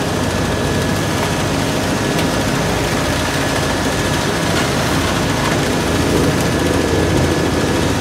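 XCMG RP803 asphalt paver running steadily while laying asphalt: a constant diesel engine drone with the working machinery, and a thin steady whine above it.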